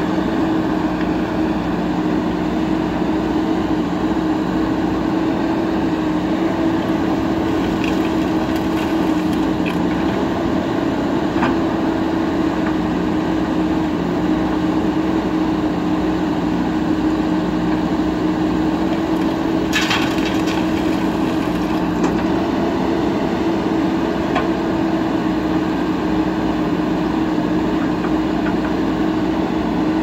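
JCB 3DX backhoe loader's diesel engine running steadily while its backhoe works in gravel. A few faint clicks are heard, and a short clatter comes about twenty seconds in.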